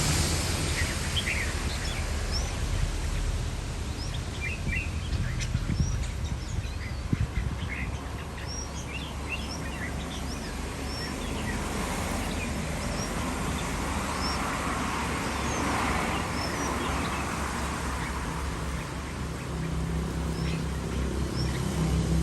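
Young red-whiskered bulbuls giving many short chirps and calls, scattered and overlapping, over a steady low rumble; a hiss swells up in the middle and fades.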